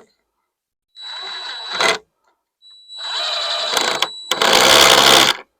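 Cordless drill driving screws into wood framing, with a high motor whine. It runs twice: a short burst about a second in, then a longer run of nearly three seconds with a brief break partway through.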